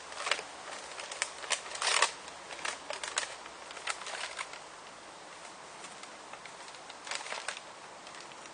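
A small cardboard parcel being opened by hand: irregular crackling, tearing and rustling of cardboard and tape, the loudest about two seconds in, a quiet spell past the middle, then a few more crackles near the end.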